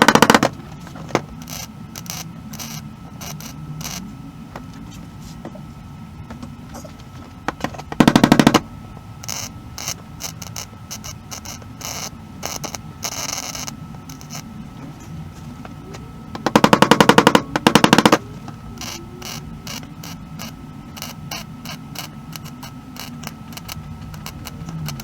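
Short bursts of MIG welding on sheet-metal car floor panels: three loud bursts, at the start, about 8 seconds in, and about 17 seconds in, the last lasting over a second. Light clicks and tapping come between the bursts.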